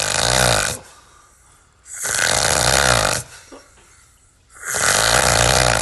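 A man snoring: three long, rattling snores, each about a second long, coming about every two seconds with quiet breaths between.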